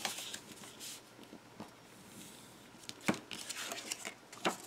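Design paper being folded and creased along its score lines: soft rustling with two sharper clicks, about three seconds in and near the end.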